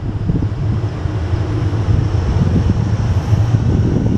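Wind buffeting the microphone: a gusty, uneven low rumble over a steady low hum.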